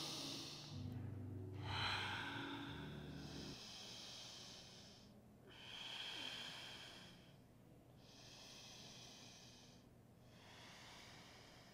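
A woman taking slow, deep breaths, about five of them, each a drawn-out hiss lasting a second or two with short pauses between. A low steady hum sits underneath for the first three seconds or so.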